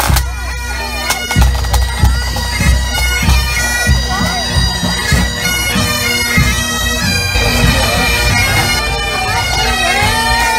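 A pipe band playing as it marches past: Great Highland bagpipes with a steady drone under the chanter melody, and regular drum beats through the first part.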